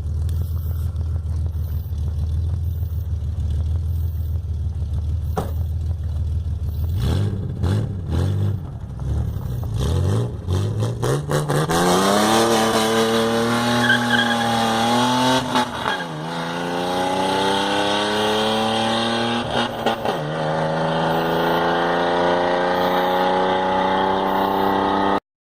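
Chevrolet Omega 4.1 straight-six running through tuned 6-into-2 headers, twin 2-inch pipes and a dual muffler: a steady low idle, a few quick revs, then the engine note climbing in pitch, dipping briefly twice and climbing again. It cuts off suddenly near the end.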